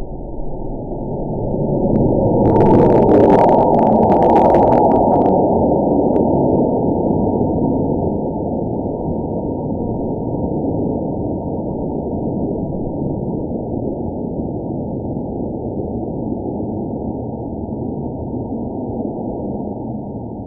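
A loud, dull rushing rumble. It swells a few seconds in, with brief crackles at its peak, then eases slowly into a steady muffled noise.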